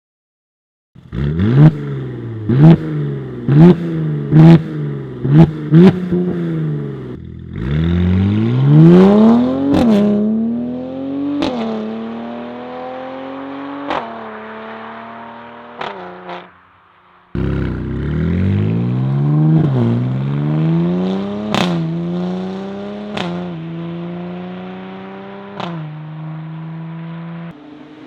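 Mercedes-AMG C43's twin-turbo V6 through an aftermarket cat-back exhaust with no particulate filter, being revved. A run of about six quick blips comes first, then longer revs that fall back to a steady idle, with sharp pops and crackles as the revs drop. The sound cuts out briefly about two-thirds through, then the engine revs up again.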